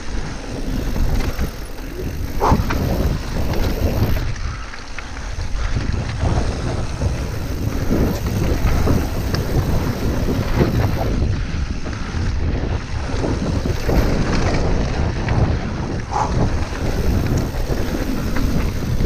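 Wind buffeting the camera microphone over the rumble of mountain bike tyres rolling fast down a dry dirt trail, with a few sharp knocks and rattles from the bike over bumps. The rush eases for a moment about four seconds in.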